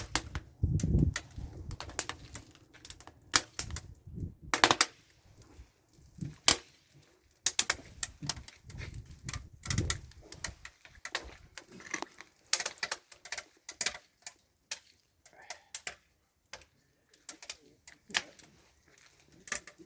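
Wood fire crackling in a brazier, with irregular sharp pops and a few duller thumps.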